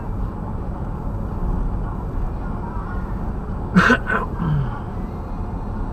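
Steady road and drivetrain noise inside a Smart fortwo's cabin while driving. About four seconds in there are two short, sharp sounds in quick succession, the second trailing off in a brief falling low tone.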